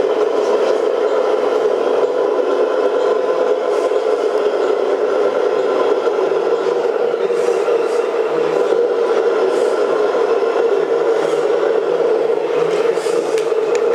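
Radio-controlled model truck driving, a steady whir from its motor and gearing, heard close up from a camera riding along with it, with occasional light clicks.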